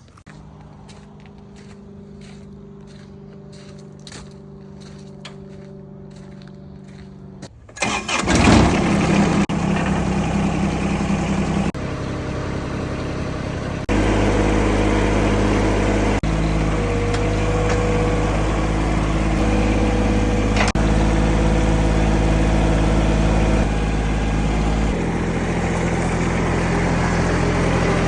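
A quiet steady hum with faint regular ticks. Then, about eight seconds in, a Bosch 4100XC-10 table saw's motor starts up loud and runs while pallet boards are ripped, its tone and level changing abruptly a few times.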